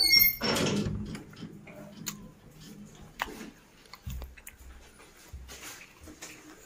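A pet dog: a short high-pitched cry right at the start, followed by a second of rustling, then scattered light ticks and a couple of soft thumps as it moves about.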